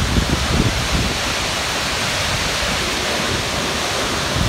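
Steady rush of a waterfall, about 25 metres high, plunging into the pool at its foot.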